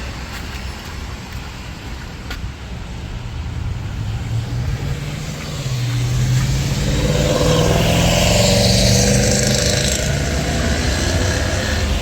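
A motor vehicle passing close by on a wet road. Its engine hum and the hiss of tyres on water grow louder from about halfway through and are loudest about three-quarters of the way in.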